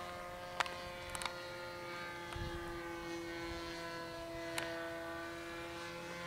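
RC model airplane flying high overhead, its motor and propeller giving a faint, steady drone of several held tones that shift slightly in pitch about two and a half seconds in, with a few brief clicks.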